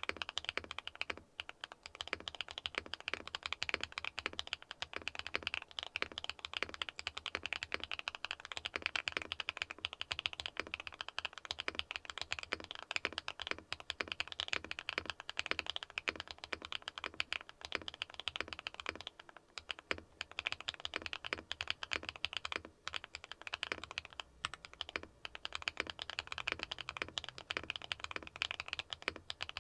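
Continuous typing on a Neo 70 mechanical keyboard fitted with Akko x HMX Mirror linear switches, factory-lubed with POK stems: a rapid run of clean keystroke clacks with only brief pauses.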